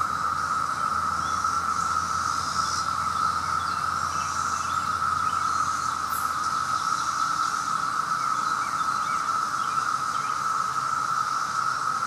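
Chorus of 17-year periodical cicadas: a loud, steady, unbroken drone.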